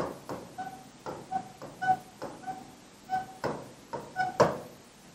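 Pen writing by hand on a board: a quick series of short squeaks and taps, one with each stroke of the letters, stopping near the end.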